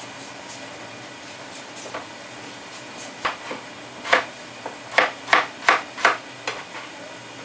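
Kitchen items knocking sharply on a counter, about eight knocks starting a few seconds in, with a quick run of about three a second near the end, over a low steady background.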